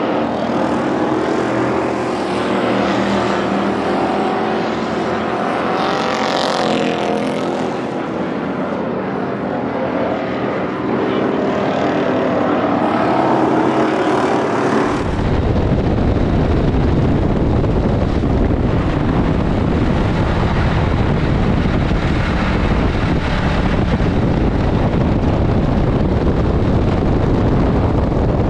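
Ford Crown Victoria V8 stock cars running laps on a dirt track, the engines rising and falling in pitch as they circle. About halfway through it switches to inside one car's stripped, caged cabin, where its engine and the road and wind rumble make a loud, dense drone.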